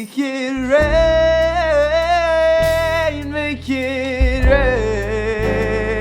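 A male singer holding long, wavering notes over a steady instrumental accompaniment in a slow pop-soul song.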